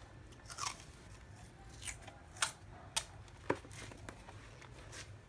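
A few light, sharp clicks and taps, scattered and irregular, from small objects being handled, over a faint low hum.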